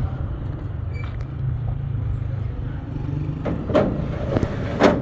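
A motor running steadily with a low hum, with four sharp knocks in the last second and a half, the last one the loudest.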